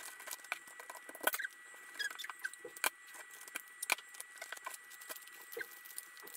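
Wrapping paper rustling and crinkling in small irregular crackles as it is folded and creased around a gift.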